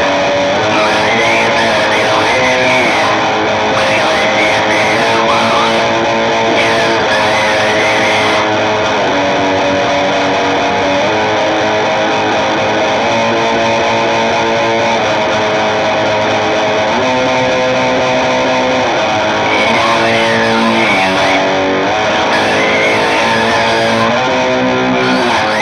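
Guitar-led rock music, electric guitar with effects, playing continuously at a steady loud level. The brightest treble drops away for about ten seconds in the middle, then returns.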